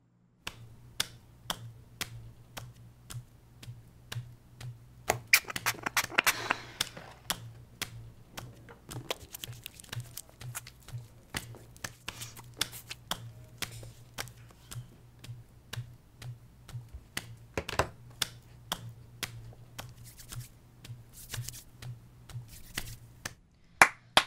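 Irregular clicking and tapping of typing on a laptop keyboard, with a brief scratchy stretch about five seconds in, over a steady low hum.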